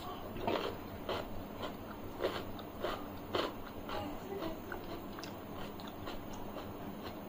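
Close-miked chewing of a mouthful of food, with short wet mouth clicks about every half second that get softer after about four seconds.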